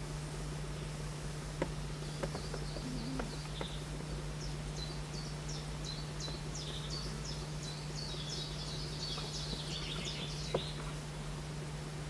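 A small songbird singing in the background: a run of quick, high, falling notes, about two a second, starting about four seconds in and thickening into a faster jumble near the end. A few faint clicks and a steady low hum lie underneath.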